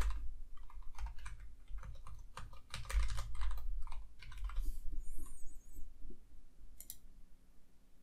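Computer keyboard typing: keys tapped in quick bursts for the first few seconds, then a few sparser clicks near the end.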